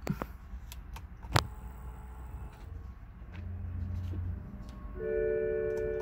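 A 2008 BMW powering up with the ignition on and the engine off. There is a sharp click about a second and a half in and a brief low hum a little later. About five seconds in, the dashboard warning chime sounds as one steady, chord-like tone held for a couple of seconds, with the seatbelt warning lit.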